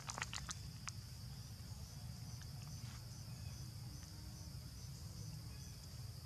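Steady high chirring of forest insects, with a quick run of about six sharp clicks in the first second over a low steady rumble.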